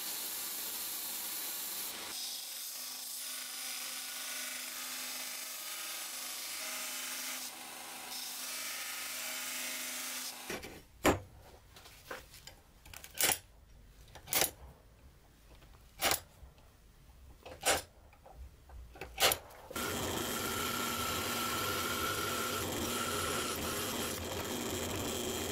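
A belt grinder grinding the edge of a rusty steel saw-blade blank, a steady hiss. From about ten seconds in, six sharp knocks about a second and a half apart. Near the end, a drill boring through the steel blank with a thin steady whine.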